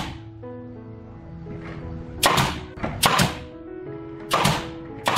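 Pneumatic nail gun firing nails into pine battens: about four sharp shots, each trailing off quickly. Background music plays throughout.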